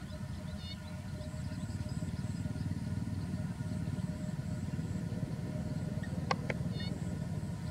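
Outdoor ambience: a steady low rumble, with a few faint high chirps about a second in and again near the end, and a couple of sharp clicks near the end.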